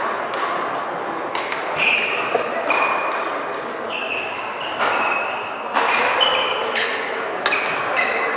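Badminton rally in a large hall: sharp racket strikes on the shuttlecock about once a second, with short high squeaks of court shoes on the floor between them.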